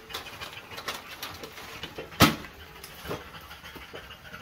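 A latch clacks shut once, sharply, about two seconds in, with a few lighter knocks and taps before and after it.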